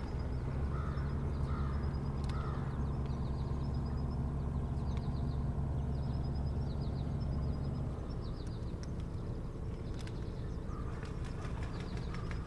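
A low, steady motor drone, most likely a distant motorboat engine, runs under everything and drops in level about seven and a half seconds in. Over it a small bird repeats a high, quick phrase about once a second. A few short, lower harsh calls come near the start and again near the end.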